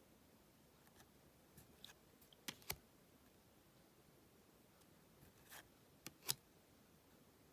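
Trading cards being handled, heard faintly: a few sharp clicks in two quick pairs and a brief rustle.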